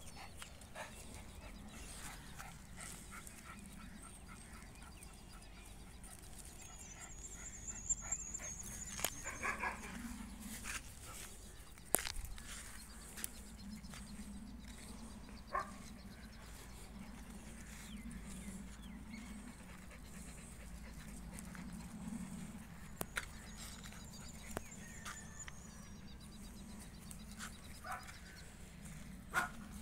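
A dog giving occasional short vocal sounds, including a falling whine about nine seconds in, over faint background noise. A high, quick trill sounds twice.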